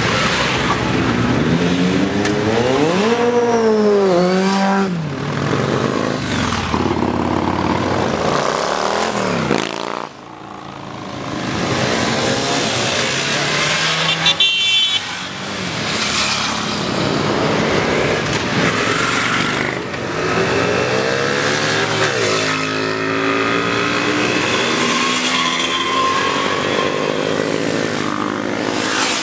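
Motorcycles riding past one after another, each engine rising and then falling in pitch as it goes by, with riders accelerating along the road.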